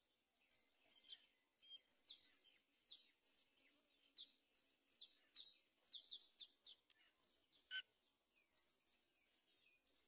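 Nestlings begging in the nest while being fed: a faint, quick run of thin, high chirps, several a second.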